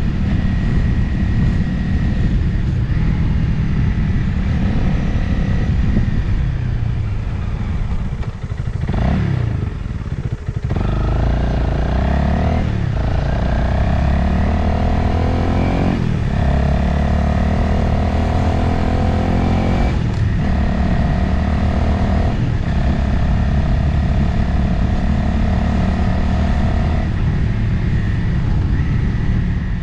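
Motorcycle engine running on the road with wind rushing over the microphone. The engine eases off about nine seconds in, then pulls again, its pitch rising through several short breaks as the rider shifts up through the gears.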